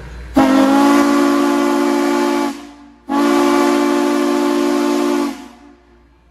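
Steam locomotive whistle sounding two long blasts of about two seconds each, a chord of several notes over a rush of steam. Two long blasts are the standard railroad signal that the train is about to move forward.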